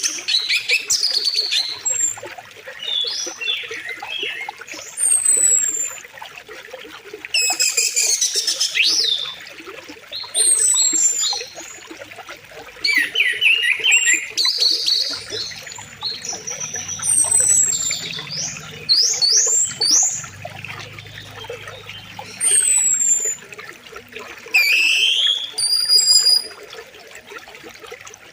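Several birds singing in short repeated phrases of chirps and falling whistles, over the steady rush of a flowing river.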